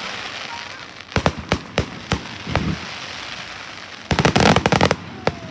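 Fireworks going off: a hiss, then three sharp bangs about a second apart and a duller thump, then about four seconds in a rapid run of crackling reports that is the loudest part.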